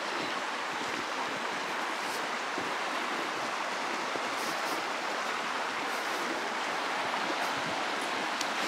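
Meltwater stream running under and through the snow: a steady, unbroken rush of flowing water.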